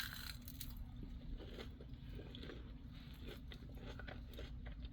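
A person chewing crunchy chicken, faint irregular crunches close to the microphone, over a low steady hum.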